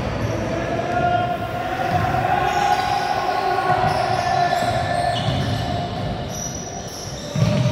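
Basketball being dribbled on a hardwood gym floor: dull thumps about once a second, with a loud thump near the end. A steady held tone sounds beneath it for most of the time.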